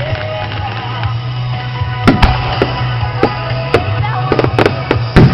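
Fireworks shells bursting in a string of sharp bangs over steady background music, the loudest bangs about two seconds in and near the end.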